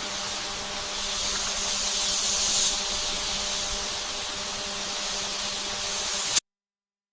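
A steady spraying hiss with a faint hum underneath, swelling slightly a few seconds in and cutting off abruptly near the end.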